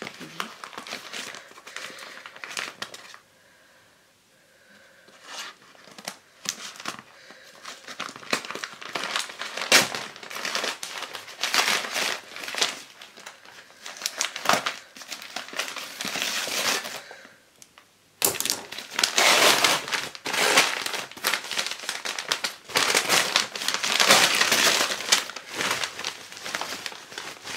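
A parcel mailer envelope being cut open with scissors and torn apart by hand: dense crinkling and tearing of the packaging. There is a short lull a few seconds in, and the crinkling is busiest in the last third.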